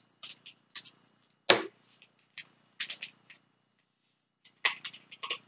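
A spoon clicking and scraping in a plastic measuring jug of warm water as brewer's yeast is stirred in, with one sharper knock about a second and a half in and a quick run of light clicks near the end.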